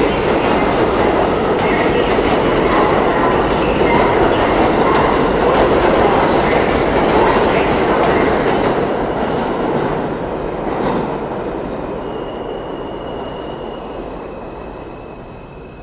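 A New York City Subway train running out along the far track: a steady rumble with rapid wheel clicks that fades from about ten seconds in as the train goes into the tunnel. Faint thin whines linger near the end.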